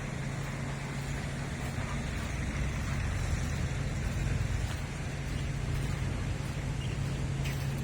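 Caterpillar 245 excavator's diesel engine running steadily at idle, a constant low hum.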